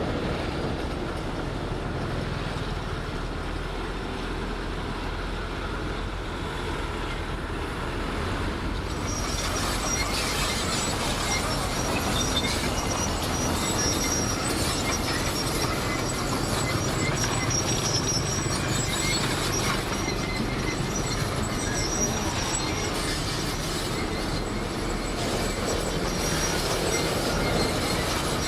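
Crawler bulldozer running under load with a steady engine rumble, its steel tracks squealing and clanking. From about a third of the way in, a high-pitched squeal comes and goes over the engine.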